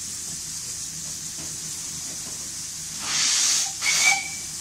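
Hawthorn Leslie saddle-tank steam locomotive standing with a steady hiss of escaping steam. About three seconds in, a loud rush of steam lasts under a second, then a second short burst carries a brief high note.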